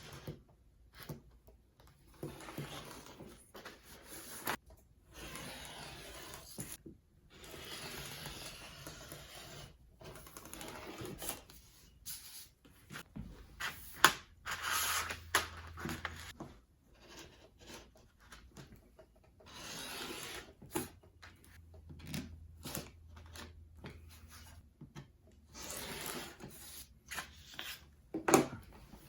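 Intermittent rubbing and rustling in stretches of a second or two, with scattered clicks and a couple of sharper taps, from hands handling and marking out materials for a bike frame bag.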